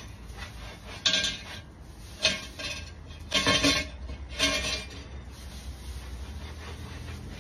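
A metal utensil clanking against a metal cooking pan: four bouts of clatter with a short ring, about a second apart, then it stops.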